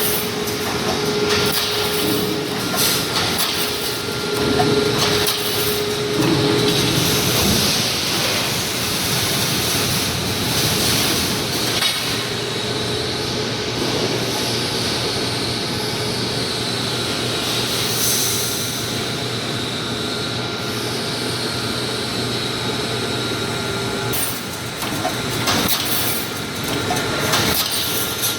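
Wire mesh welding machine making 3-6 mm panel mesh: a continuous mechanical din with a steady hum and repeated knocks and clanks every second or two as the machine cycles.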